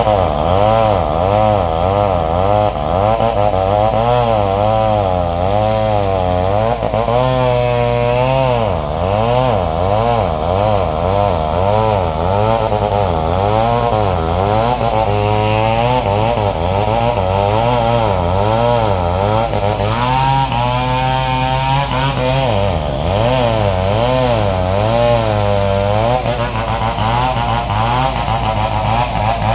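Two-stroke chainsaw running hard while cutting timber, its engine pitch rising and falling over and over as the chain bites and frees up.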